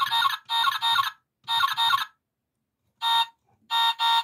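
Electronic horn sound effect of a Road Rippers 1957 Chevy Bel Air toy car: short honks, mostly in quick pairs, about eight in all with short silences between.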